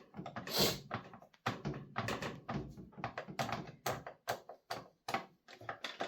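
Irregular clicks and light knocks of a T-handle driver working out a bolt on a leaf blower's plastic shroud, tool and plastic knocking together as it turns.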